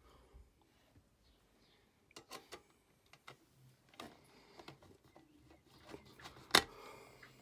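Light clicks and taps of small metal parts and a screwdriver as the bottom cover and screws of a 2014 Mac mini are refitted, with one sharper knock about six and a half seconds in.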